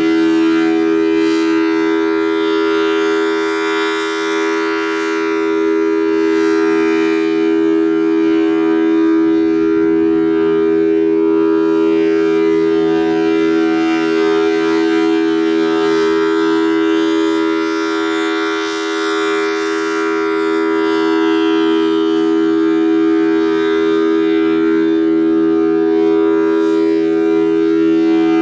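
Federal Signal Thunderbolt 1000T outdoor warning siren with a 4/5-port chopper sounding its full-alert steady signal: a loud, held two-note chord. It slowly swells and fades, dipping about every fourteen seconds as the rotating head sweeps past.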